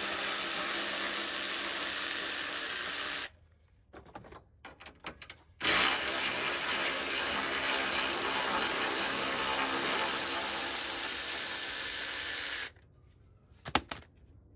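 Cordless power tool running at steady speed, unscrewing the bolts that hold the radiator fan assembly: one run stops about three seconds in, a few light clicks follow, then a second run of about seven seconds.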